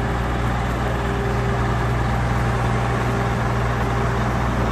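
Scania truck's diesel engine idling with a steady, even hum as the truck edges slowly down a loading ramp.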